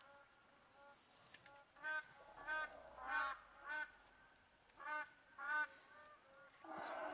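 Short honking animal calls, mostly in pairs about half a second apart, repeating every second or so, with a longer, rougher call near the end.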